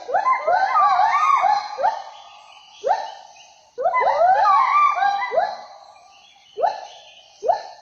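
Animal calls: bouts of overlapping whooping notes, each rising in pitch, from several voices at once. A bout at the start and a second from about four seconds in, with single calls between and near the end; a faint high chirring sits behind them.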